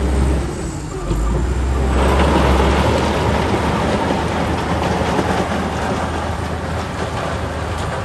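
Heavy diesel construction machinery running with a steady low drone. A dense clattering noise swells about two seconds in.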